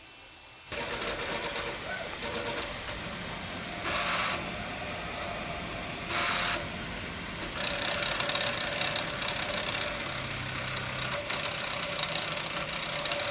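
Desktop FDM 3D printer printing: its stepper motors whir and buzz in shifting tones as the print head traces back and forth, laying down plastic layer by layer. The sound starts suddenly about a second in, with two brief louder rushes around four and six seconds, and gets busier from about halfway.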